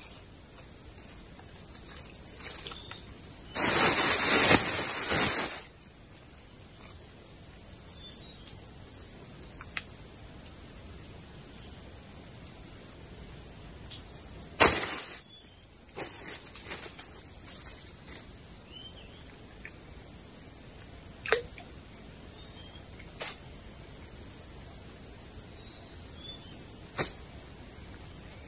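Steady high-pitched buzzing chorus of insects. About four seconds in there is a noisy burst lasting about a second and a half, and a sharp click comes about halfway through, with a few fainter clicks later on.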